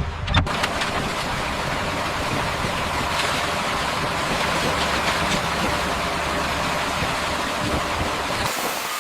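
Steady mechanical running noise of construction machinery, like an engine at a constant speed, cutting off abruptly near the end.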